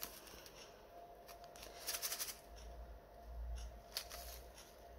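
Faint crinkling of small plastic zip-lock bags of diamond-painting drills being handled, in a few short scattered bursts.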